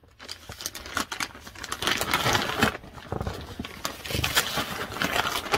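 Clothing being handled and moved about, rustling and crinkling in an irregular run of soft scrapes and light clicks.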